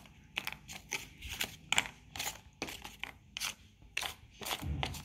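Small cardboard tiles being handled and set down in a plastic basket: a string of light, irregular clicks and scrapes.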